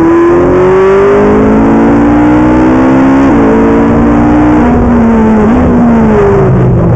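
Ferrari 458 Italia's 4.5-litre V8 heard from inside the cabin at speed on track. Its revs climb at first, then fall as the car slows, with two downshifts that each kick the revs up sharply, about three and five and a half seconds in.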